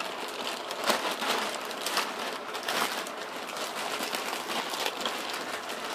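Clear plastic packaging crinkling and rustling in irregular crackles as a packaged bag valve mask is pulled open and unwrapped.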